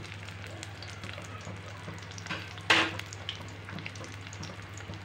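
Pieces of rohu fish frying in hot oil in a pan: a steady sizzle and crackle with scattered small pops, and one louder sharp crack about two and a half seconds in.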